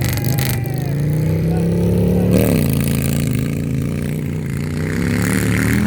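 Harley-Davidson V-twin motorcycle engine under hard throttle, its pitch rising, then dropping sharply about two and a half seconds in before climbing again, as on a gear change during a hill-climb run.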